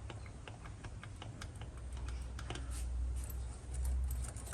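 Valiant VH Charger engine being cranked over on the starter without catching, a low rumble with a run of sharp clicks that grows louder about halfway through; the engine is out of fuel.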